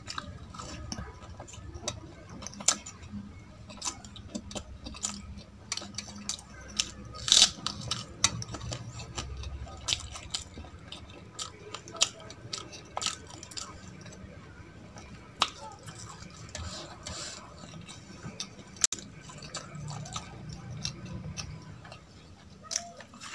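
Close-up eating sounds: chewing and wet mouth clicks, with fingers scraping and tapping food on a steel plate. These come as irregular sharp clicks, the loudest a cluster about seven seconds in.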